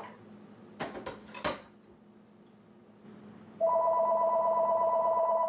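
A telephone ringing with a loud electronic two-tone ring, starting about two-thirds of the way in. Two sharp knocks come about a second in.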